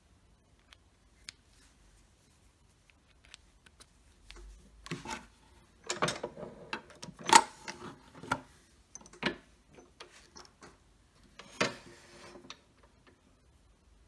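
Scattered metal clicks, clunks and scrapes as a pen blank with turn-between-centers bushings is mounted on a wood lathe, between the headstock dead center and the tailstock live center. The loudest knocks come in a cluster in the middle, with another short burst near the end.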